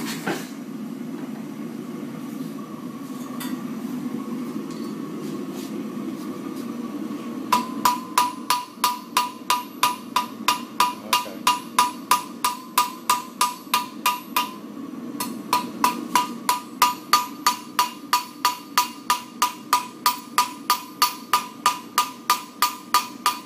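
Blacksmith's hammer striking hot steel on an anvil in a steady rhythm, about three ringing blows a second, as the edges of a forged steel leaf are veined and feathered out. Before the hammering starts, several seconds of a steady low rushing noise; the blows stop briefly about halfway through, then carry on.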